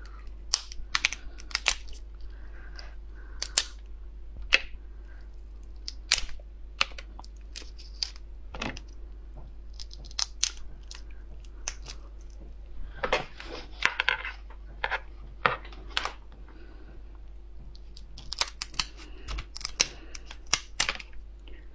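Hard shells of cooked slipper lobsters cracking and snapping as they are pulled apart by hand: an irregular run of sharp clicks and crackles, coming thickest in two flurries. Near the end, kitchen scissors snip through the shell.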